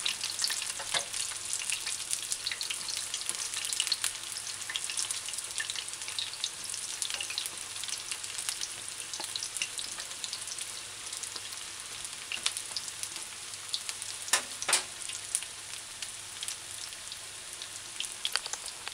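Okra and codfish fritters shallow-frying in hot oil at medium-high heat: a steady sizzle full of small crackles and pops. A couple of louder knocks stand out about three-quarters of the way through.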